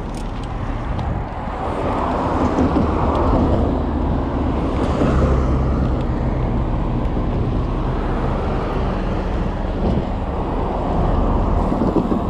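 Wind buffeting the microphone of a handlebar-mounted action camera on a moving bicycle, a steady low rumble mixed with road noise, growing louder about two seconds in.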